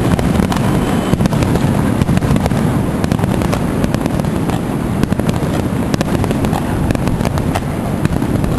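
Aerial fireworks bursting in quick succession: overlapping booms with many sharp cracks and crackles and no pause between them.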